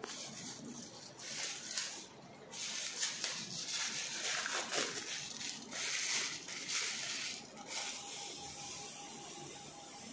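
Small plastic bag of poppy seeds crinkling and rustling in irregular bursts as it is unwrapped and handled. A faint steady tone comes in near the end.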